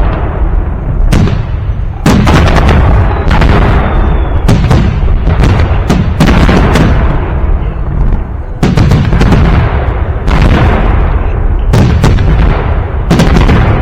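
Festive fireworks salute: a rapid series of loud booming shell bursts, roughly one or two a second, with a continuous rumble and echo between them.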